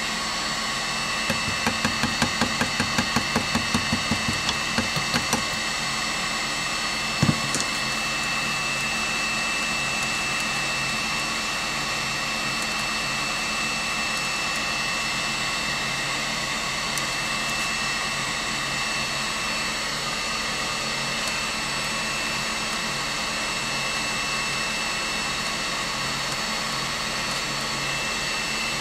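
A steady electric motor whirring with a high whine. A quick run of light, evenly spaced metal taps, about three a second, plays over it for the first few seconds, then one sharp knock.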